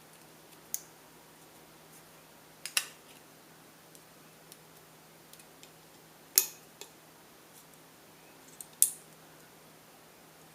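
Tin snips cutting the thin tin-plate steel of a tuna can: four sharp snips a few seconds apart, with a few fainter clicks of metal between them.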